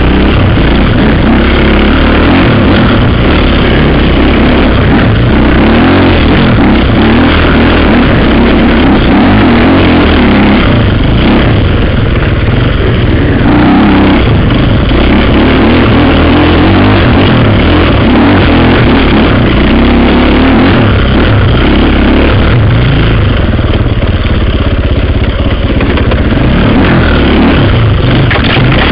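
KTM off-road dirt bike engine running hard on a woodland trail, heard loud and close through a helmet-mounted camera, its note rising and falling with the throttle and easing off briefly about twelve seconds in and again a few seconds before the end.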